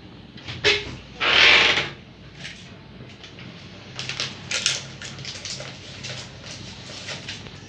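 Cookware being handled: a sharp knock, then a scraping rush of about half a second, then a run of light clicks and taps from the lids of an aluminium pudding mould and a glass-lidded pot.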